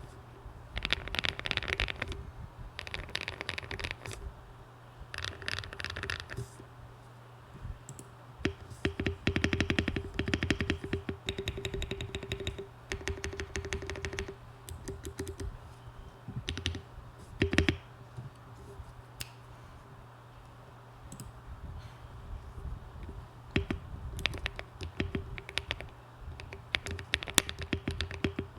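Typing on a Monsgeek M1 aluminium-case mechanical keyboard with hand-lubed Akko Cream Yellow linear switches and ASA-profile keycaps. The keystrokes come in quick runs separated by short pauses, with one louder single key stroke about two-thirds of the way through.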